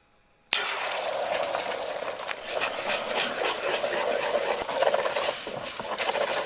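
Beaten eggs sizzling in hot oil in a wok. The sizzle starts suddenly about half a second in and stays loud and steady, with a wooden spatula scraping and stirring through it.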